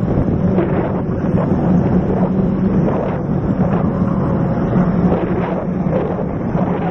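Wind rushing over a handlebar-mounted camera's microphone while a mountain bike rolls along a dirt trail, with a steady low drone and short knocks and rattles from the bike over the bumps.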